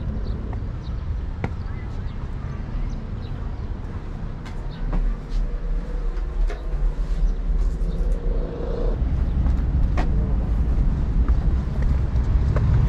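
Outdoor background noise: a steady low rumble with scattered faint clicks, a brief humming tone in the middle, and the rumble growing louder in the second half.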